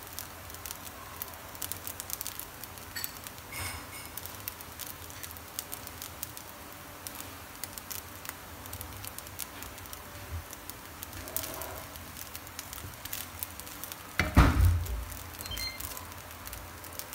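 Shrimp fried rice sizzling and crackling in a nonstick frying pan. Near the end a louder knock and scrape comes as a wooden spatula goes in to stir the rice.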